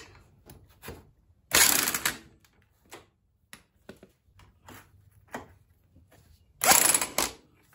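Clicks and knocks of tools and metal parts as the transmission cover of a GY6 scooter engine is fitted back on. Two louder rasping bursts come about one and a half seconds in and again near the end.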